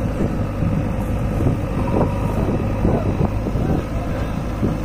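Diesel engines running steadily with a low hum: an old HMT tractor idling close by, and a JCB backhoe loader working behind it.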